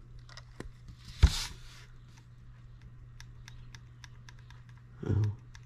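Handling noise from a small brass model engine on its wooden base as it is picked up and turned: one sharp knock about a second in, then a run of light, irregular clicks and taps.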